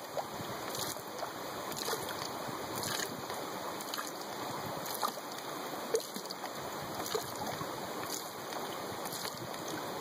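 Stream water flowing steadily, with faint light ticks about once a second.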